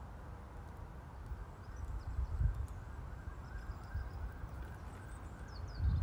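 A horse's hooves on a soft arena surface as it is led at a walk, giving dull, irregular low thuds, with a few faint bird chirps.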